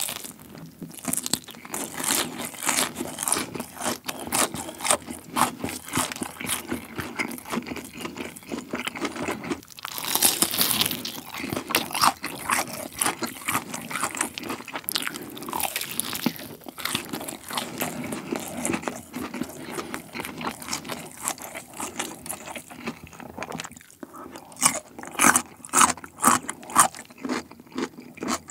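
Close-miked crunching and chewing of crispy fried chicken tossed in a sweet-salty galbi sauce, with repeated crisp bites through the coating. The loudest crunches come about ten seconds in and again near the end.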